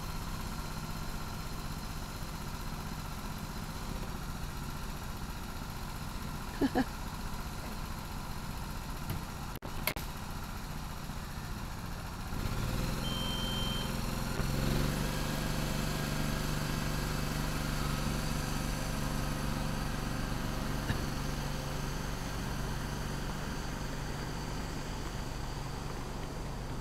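Engine of a small miniature park train running steadily, its hum growing louder about halfway through, with a short high beep soon after.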